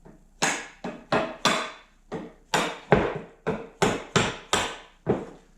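About a dozen hammer blows on the wooden slats of an Ikea bench, knocking tight slats loose from the frame. The sharp knocks come in quick, uneven runs, about two or three a second.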